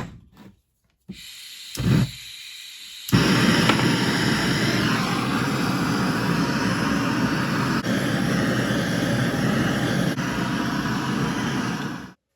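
Gas blowtorch: a click, a soft hiss of gas with a brief flare, then about three seconds in a loud, steady roar of the flame that cuts off just before the end. It is heating the gearbox casing to free an old bush.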